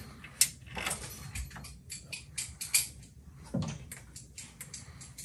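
Socket ratchet and wrench clicking and clinking on the jet drive's mounting bolts: a run of irregular metal clicks, the sharpest about half a second in, with a dull knock around three and a half seconds.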